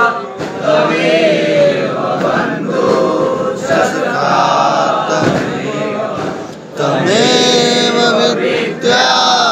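Several voices chanting a Hindu devotional hymn together, the melody rising and falling. About seven seconds in, after a short dip, they hold a long sung note.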